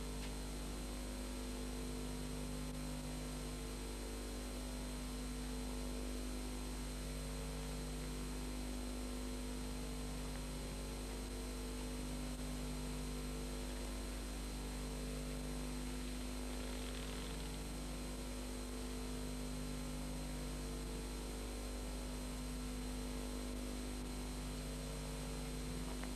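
Steady electrical hum with hiss on the recording, with a low tone that comes and goes about every two seconds.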